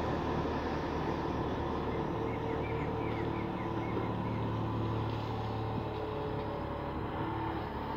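Komatsu PC200 long-reach excavator's diesel engine running steadily under working load as the long arm swings and lowers the bucket.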